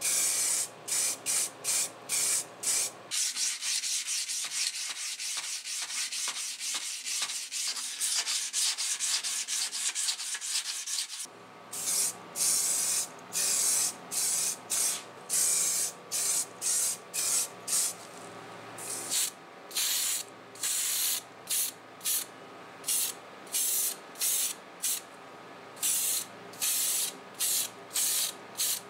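Spray paint hissing in many short bursts with brief gaps, and one longer unbroken spray of several seconds early on, as a second coat is laid onto the pincers.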